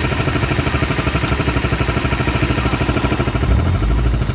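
An engine running steadily close by with a fast, even pulsing, and a low rumble swelling up briefly about three and a half seconds in.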